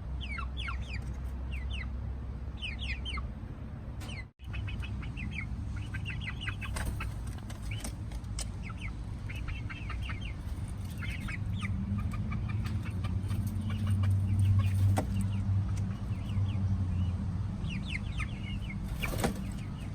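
A flock of eight-week-old pullets peeping and chirping in many short, high calls as they go to roost in the coop. A low rumble runs underneath, loudest about two-thirds of the way through, and the sound cuts out for a moment about four seconds in.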